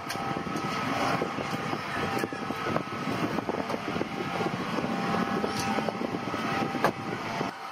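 A screwdriver turning screws into small metal wheel fittings for a sliding glass door channel: small metal clicks and scrapes, with a sharper click near the end, over a steady background hum.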